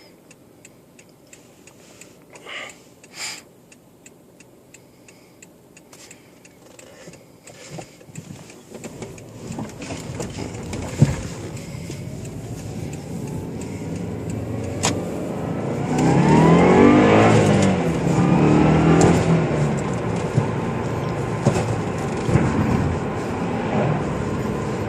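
Turbocharged 2.5-litre flat-four of a 2006 Subaru Legacy GT with a catless up-pipe, heard from inside the car as it accelerates. It is quiet at first, then the engine note climbs steadily in pitch from about nine seconds in, is loudest a little past the middle, and then settles into a steady cruise.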